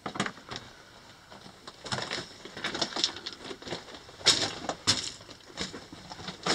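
Footsteps crunching and scuffing on loose rock rubble: irregular short crunches and clicks, with two louder ones about four and five seconds in.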